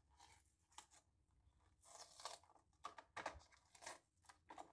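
Faint, scattered crackles and clicks of a Hot Wheels blister pack's plastic being handled and worked at with a utility knife.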